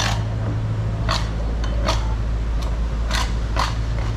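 A long knife scraping along a bluefin tuna's backbone and rib bones in about six short strokes as the loin is cut away, over a steady low hum.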